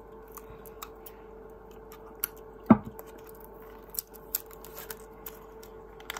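Fingernails picking and scratching at clear plastic tape sealed around the lid of a plastic body scrub jar, making scattered small clicks and crinkles, with one louder knock about two and a half seconds in as the jar is handled.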